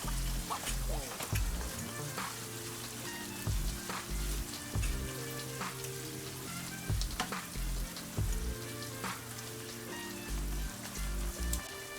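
Chicken skin frying in oil in a frying pan: a steady sizzle with scattered crackles and clicks, under background music with a repeating low beat.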